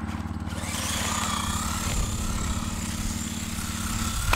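Steady drone of a small engine running, with a faint wavering whine above it.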